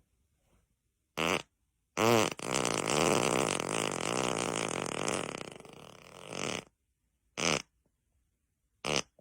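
A string of farts: a short one, then a long fluttering fart of about four seconds that tapers off, then two more short ones.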